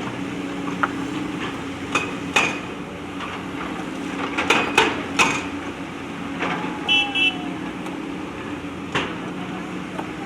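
JCB backhoe loader's diesel engine running steadily while the bucket knocks and clanks against stones, giving sharp metallic hits every second or two. A short run of high beeps comes about two-thirds of the way through.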